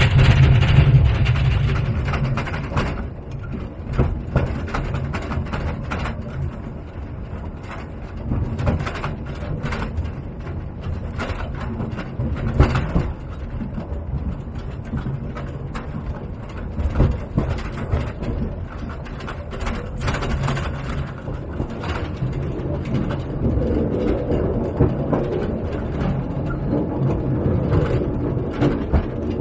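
Small electric mine trolley train running along narrow rails, its cars rattling and clattering over a low rumble, with frequent irregular knocks from the wheels and couplings.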